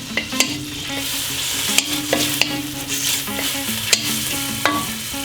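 Prawns searing in hot oil in a wok, sizzling steadily, with several sharp clicks and scrapes of a utensil against the wok as they are stirred.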